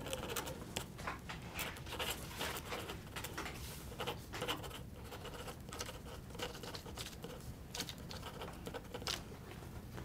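Pages of an old book being leafed through: dry paper rustling and flicking in many quick, irregular strokes.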